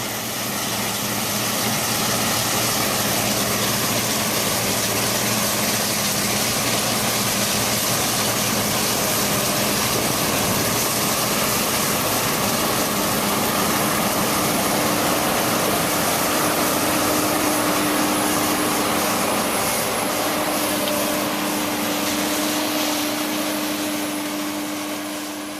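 Combine harvester running steadily while harvesting soybeans: a constant engine and machinery drone with a low hum, growing louder over the first couple of seconds.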